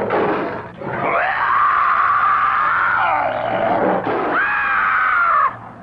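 Cartoon fight sound effects: two long, loud screams, the first rising and held for about two seconds, the second shorter, as a sabre-toothed cat attacks a club-wielding caveman.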